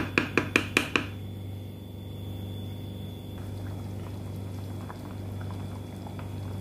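Wooden spoon knocking rapidly against the side of a metal pot while stirring, about five knocks a second, stopping about a second in. Then chicken and rice porridge (arroz caldo) bubbling in the pot, with a steady low hum underneath.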